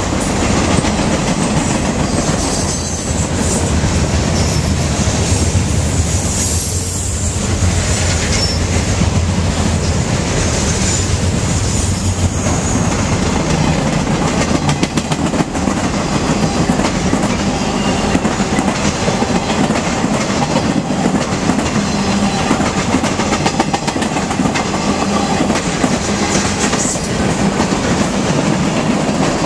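Mixed freight train cars (boxcars, covered hopper, flatcars, tank car) rolling past: a loud, steady rumble of steel wheels on the rails with continuous fast clicking and clattering.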